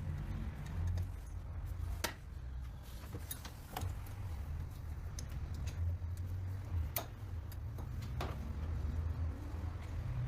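A few sharp clicks, four or so, spaced a second or more apart, from tools working on the car, over a steady low hum.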